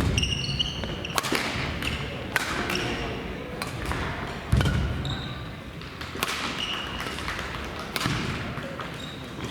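Badminton doubles rally: sharp racket strikes on the shuttlecock roughly every second, shoe soles squeaking in short high chirps on the court floor, and heavy footfalls near the start, about halfway and near the end.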